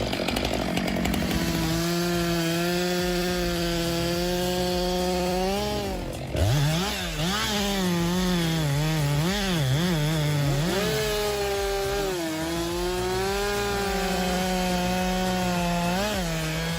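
Chainsaw engine running at high revs while cutting wood. The pitch holds steady, then sags and recovers again and again as the chain bites into the cut under load.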